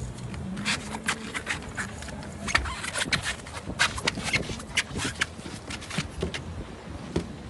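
Irregular sharp knocks and clicks over a low rumble from a small boat on choppy sea while a fish is fought on rod and reel.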